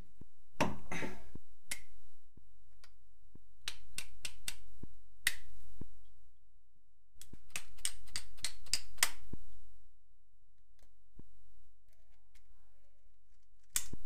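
Small metal parts of a milling-machine power-feed joystick clicking and clinking against each other and the bench as they are handled and fitted together during reassembly. The taps come in several quick clusters, the loudest about a second in and again around eight to nine seconds in.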